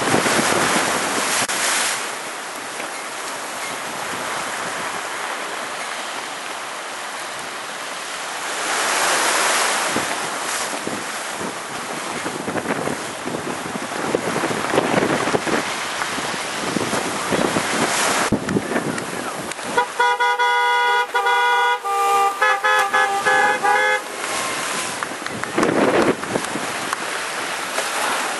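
Hurricane wind buffeting the microphone over breaking surf, rising and falling in gusts. About twenty seconds in, a horn sounds in a run of short honks for about four seconds.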